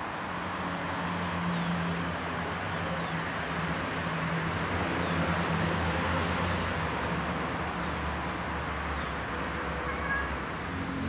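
Steady outdoor background noise with a low, steady hum, typical of distant road traffic.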